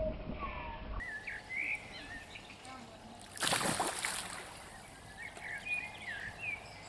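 A single loud splash at the lake surface about three and a half seconds in, lasting under a second, with small birds chirping before and after it.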